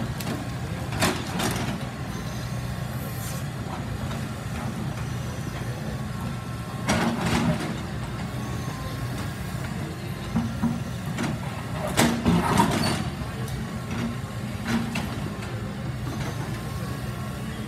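CAT hydraulic crawler excavator's diesel engine running steadily, with sharp knocks and clatter as its bucket works demolition debris: a few at about one second in, more around seven seconds in, and the loudest bunch around twelve seconds in.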